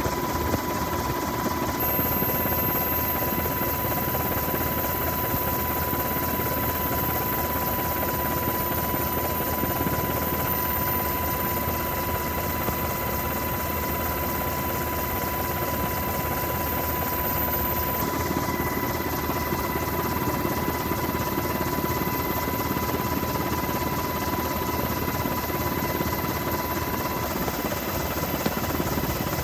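Steady whirring of an aircraft's rotors and engine with a constant high whine, heard from aboard the aircraft.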